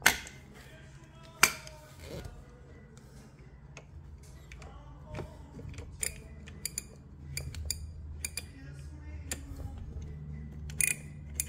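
Sharp plastic clicks and ticks from the yellow push-button weight-selector dials on an MX55 adjustable dumbbell being pressed and turned by hand, with two loud clicks in the first second and a half and a quick run of clicks near the end.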